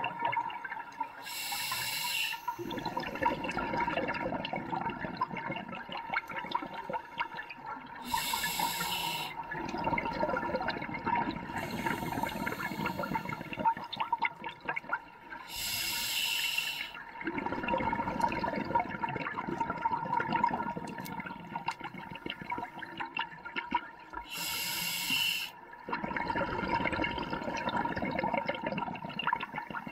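Scuba diver breathing through a regulator underwater: four short hissing inhalations, each followed by a longer burble of exhaled bubbles.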